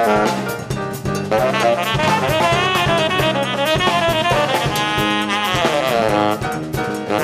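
Tenor saxophone playing a quick-moving jazz solo line, with a run of falling notes in the middle, over electric bass and drum kit.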